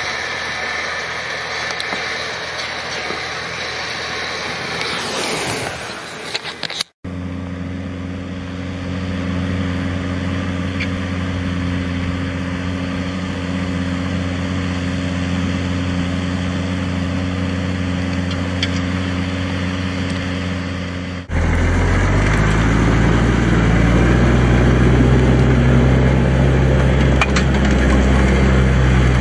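Diesel tractor engines working under load in the field, in three clips joined by abrupt cuts: first a tractor pulling a disc harrow, then a steady engine drone as a tractor pulls a reversible plough. About two-thirds of the way through, the sound jumps to a louder, deeper engine drone.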